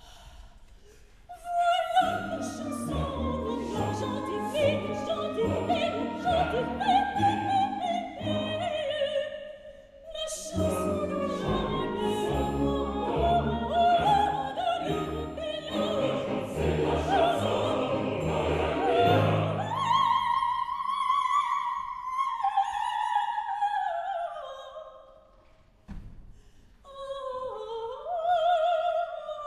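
Female operatic voice singing with a full orchestra of strings. About two-thirds of the way through, the orchestra drops away and the voice carries on in a long falling line over light accompaniment.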